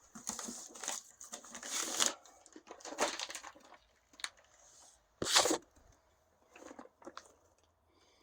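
Firework packaging being handled and rummaged: cardboard and plastic rustling, crinkling and tearing in bursts, with one short, louder scrape about five seconds in.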